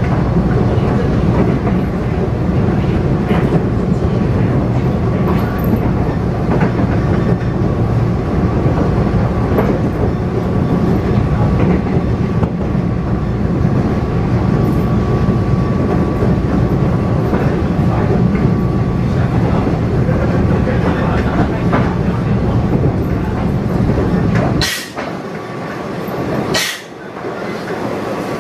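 Cabin noise inside a Taiwan Railway EMU500 electric multiple unit running at speed: a steady rumble of wheels on rail with a faint steady whine. Near the end the low rumble drops away suddenly, with two short sharp sounds about two seconds apart.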